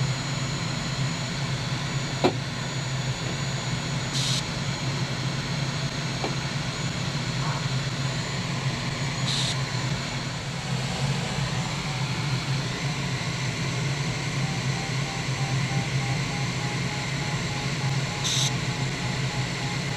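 Steady rush of air heard inside the cockpit of a Duo Discus glider in flight, with a single click about two seconds in and a few brief high hisses. From about two-thirds of the way through, the variometer beeps at an even, rapid rate at one pitch, the glider's signal that it is climbing in lift.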